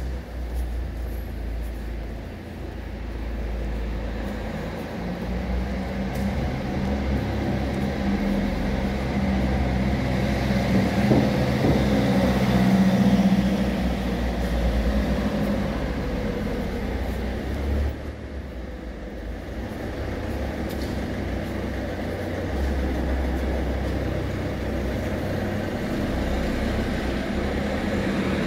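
Car engines and tyres running in an underground car park: a steady low rumble that swells about a third of the way in and dips briefly later on.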